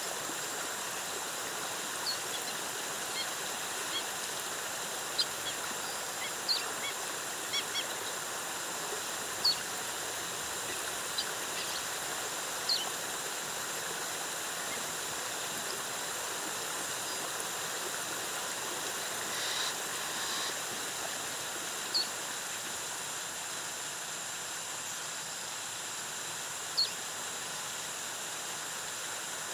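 Waterfall rushing steadily, with short, high bird chirps dotted over it, most of them in the first half and a couple near the end.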